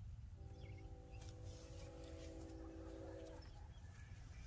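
Faint outdoor background with a low rumble, and a faint, distant steady tone of several notes held for about three seconds.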